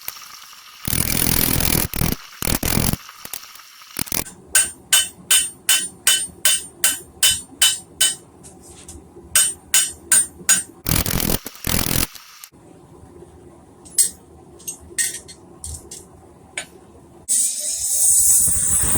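Hand hammer striking hot steel on an anvil while forging a chisel: a steady run of ringing blows, about three a second, then a few scattered blows later on. Short stretches of rushing noise come in between the runs and again near the end.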